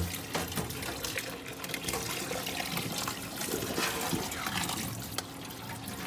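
Kitchen tap running steadily into a stainless steel sink as laver seaweed is rinsed by hand in a metal colander, with water splashing and trickling.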